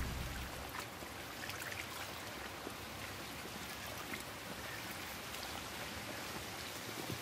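Faint, steady outdoor background hiss with scattered light ticks.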